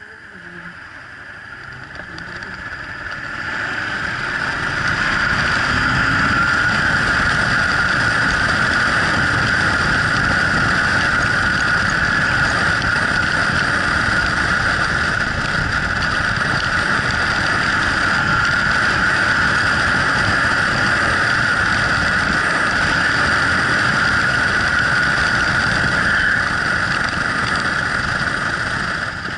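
Yamaha Drag Star 1100's air-cooled V-twin engine pulling as the motorcycle picks up speed over the first few seconds, then cruising steadily under heavy wind rush on the helmet microphone.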